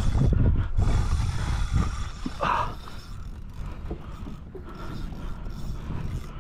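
Wind buffeting the microphone over open choppy sea, with water sloshing around a kayak and one short higher-pitched sound about two and a half seconds in.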